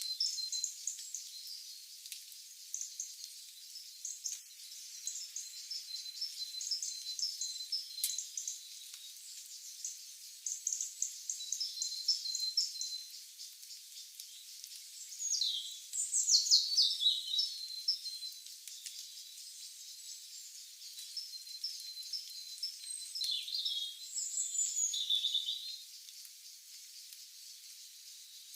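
Several birds chirping and singing in quick, high trills and twitters. A louder falling call comes about halfway through, and another burst of calls follows a few seconds later.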